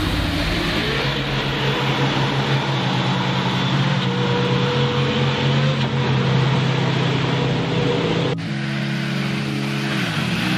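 Off-road 4x4 engines working hard through deep mud: one engine holds a steady, loud drone with small changes in pitch, then an abrupt change about eight seconds in to another vehicle's engine, whose pitch drops and climbs again near the end.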